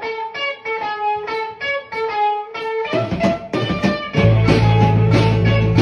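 Music: an electric guitar picking a repeated run of notes. About three seconds in more instruments join, and a second later a full band with heavy bass comes in louder.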